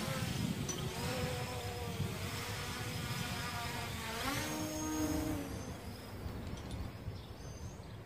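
Hubsan H501S quadcopter's brushless motors and propellers buzzing in flight, the pitch wandering with the throttle and rising sharply about four seconds in as it climbs away, then fading. Wind rumbles on the microphone underneath.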